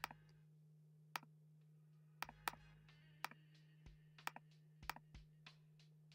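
Quiet background music, mostly sparse sharp percussive hits at irregular spacing over a steady low hum.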